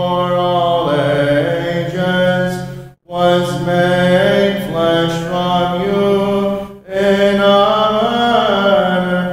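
Byzantine liturgical chant sung by voices: a melody moving over a steady held drone note (ison). It breaks off for a moment twice, about three and seven seconds in, between phrases.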